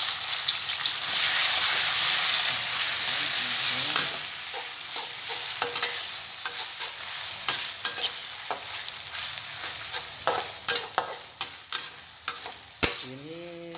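Chopped chillies sizzling in hot oil in a wok, the sizzle loudest for the first few seconds and then easing off. A metal spatula scrapes and clicks against the wok as it stirs, more often toward the end.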